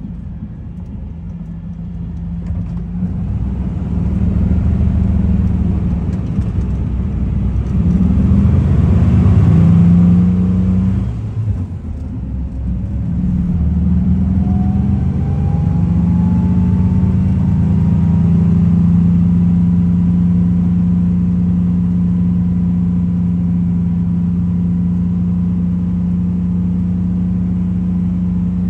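1961 VW Kombi (Type 2 bus) rear air-cooled flat-four engine heard from inside the cab while driving. It pulls up in pitch, breaks off briefly about eleven seconds in, climbs again and settles into a steady cruise for the second half. A faint whine rises with it and then holds steady.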